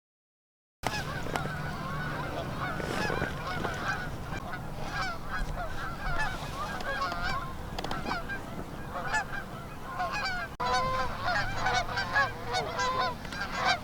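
A flock of Canada geese honking, many short calls overlapping one another, after a moment of dead silence at the very start.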